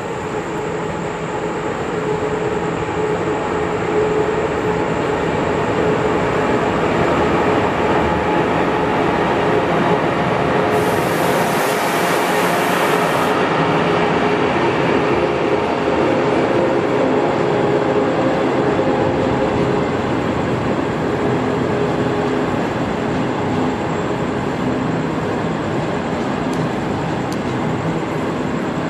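Chinese passenger train of 25T coaches hauled by an HXD1D electric locomotive approaching and passing close by, with steady loud rolling noise of wheels on rail and a faint steady hum. A brief high hiss lasts a couple of seconds about eleven seconds in.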